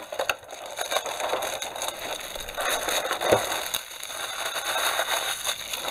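Clear plastic shrink-wrap being peeled and pulled off a cardboard box, crackling and crinkling, with a brief squeak about three seconds in.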